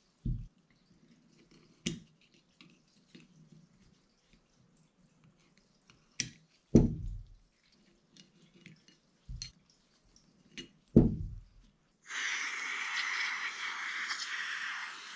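Light metal clicks and scrapes of a steel pick working old seals out of an aluminium motorcycle brake caliper's piston bores, with a few dull knocks as the caliper is handled. About twelve seconds in there is a steady hiss from an aerosol spray can: brake cleaner sprayed into the caliper.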